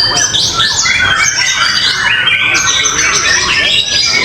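Many caged songbirds singing at once in competition, a dense unbroken din of overlapping whistles, trills and harsh chattering calls.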